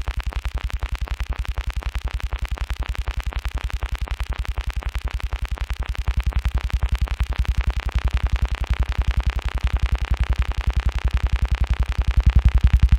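Electronic music: a synthesizer pulsing rapidly and evenly over a deep bass, getting louder near the end.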